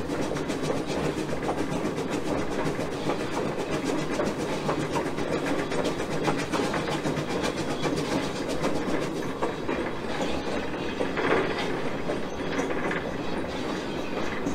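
A 1920-built steam switcher locomotive rolling along the track, heard close to the rails from its front pilot: a steady rumble of running noise with a dense clatter of wheel clicks over the rails.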